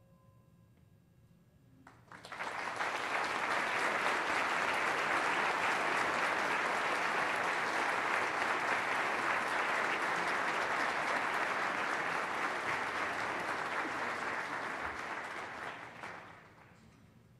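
The last held notes of a concert band die away just after the start. About two seconds in, audience applause breaks out suddenly, holds steady, and fades out about a second before the end.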